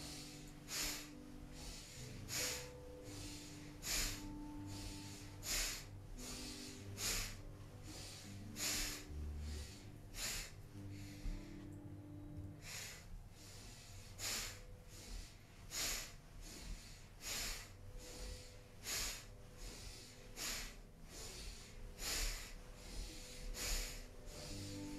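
A person breathing hard and rhythmically in time with side-to-side spinal twists, a loud in-breath or out-breath about every three-quarters of a second, pausing briefly about halfway. Soft background music with long held notes plays underneath.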